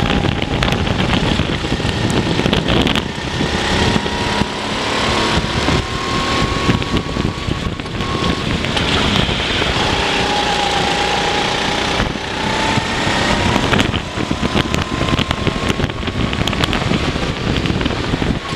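Racing go-kart engine running hard on the kart, its pitch rising and falling as the driver brakes and accelerates, with heavy wind buffeting on the microphone.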